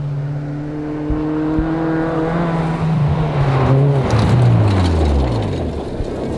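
Hatchback rally car's engine at high revs on a gravel stage, holding a steady pitch as it approaches, then falling steeply in pitch as the car sweeps past, loudest as it goes by.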